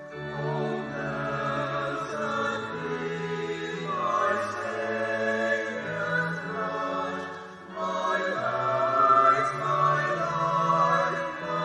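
Choral music: voices singing slow held chords over low sustained notes, dipping briefly about seven and a half seconds in before swelling again.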